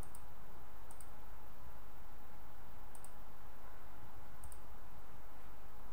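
A computer mouse button clicking four times, several as quick double-clicks, over a steady background hiss.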